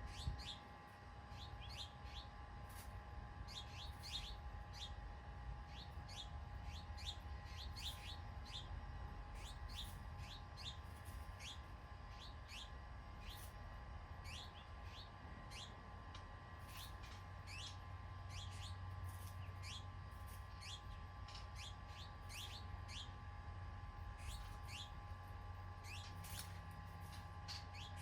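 Small birds chirping over and over, many short quick notes that fall in pitch, with a low steady rumble and a faint steady hum underneath.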